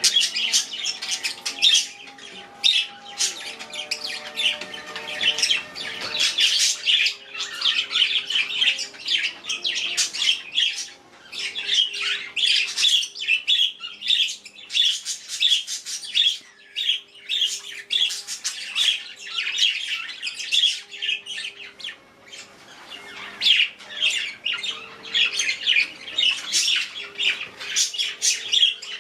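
Pet budgerigars and a cockatiel chirping and squawking continuously, many quick, high calls overlapping in a constant chatter.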